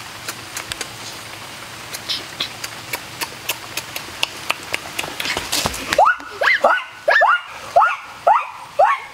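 Scattered crackling clicks, then from about six seconds in a quick run of high yelping cries, two or three a second, each rising and then falling in pitch.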